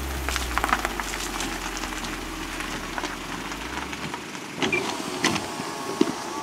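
A car engine running low and steady as the car pulls up, then switched off about four seconds in, followed by a few sharp clicks and knocks.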